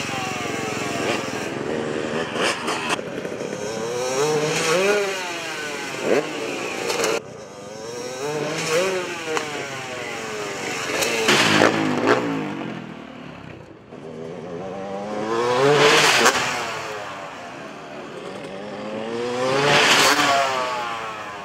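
Motocross dirt bike engines revving over and over, the pitch climbing and dropping with each throttle blip. Three louder swells come about halfway through, about three-quarters through and near the end.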